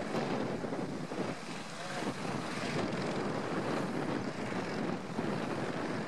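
Piper L-4 Grasshopper's small four-cylinder engine and propeller running steadily at low power as the plane taxis.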